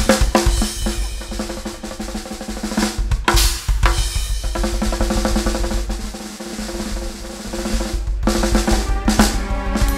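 Two drum kits played together in a live drum duet: rapid snare rolls and bass drum strokes, with cymbal crashes about three seconds in and again near the end. A held low keyboard chord sounds underneath.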